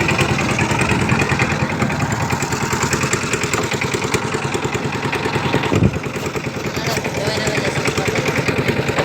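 Boat engine running steadily with a fast chugging beat, and one short knock just before six seconds in.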